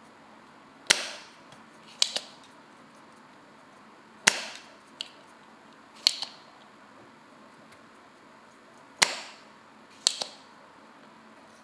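Spring-loaded desoldering pump snapping as it is fired and reset, clearing old solder from the mouse switch's pins: about six sharp snaps, in pairs roughly a second apart.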